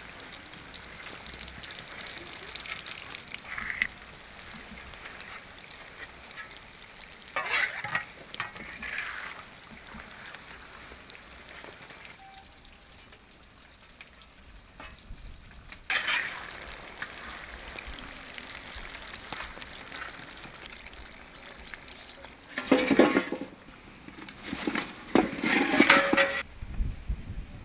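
Samosas deep-frying in oil in an iron kadai at low heat, a steady sizzle. A slotted steel ladle scrapes and clanks against the pan now and then, and near the end there are several loud metal clatters as the fried samosas are lifted out into a perforated steel bowl.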